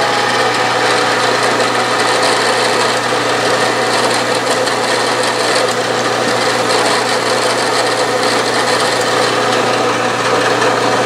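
Bridgeport milling machine spindle running steadily while a center drill is fed into a steel disc, spotting a hole.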